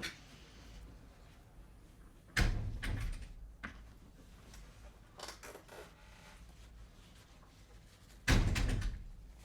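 A door being opened and shut: two loud bangs, one about two and a half seconds in and one near the end, with softer knocks and rattles between.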